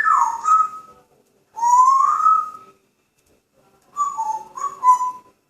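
African grey parrot whistling in three short phrases: a whistle that drops in pitch, then a rising whistle, then a quick run of short notes near the end.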